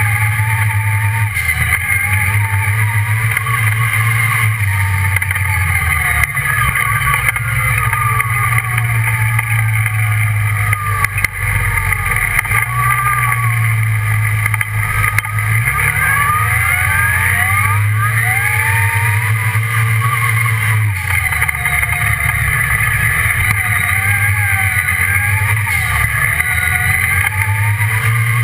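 Off-road buggy engine running while the buggy drives, over a steady low drone. Its revs rise and fall several times.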